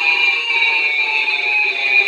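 Electronic siren alert tone from an online siren controller, played through an old radio's very old speaker at nearly full volume: a loud, harsh steady tone rich in overtones, its pitch sagging slowly downward.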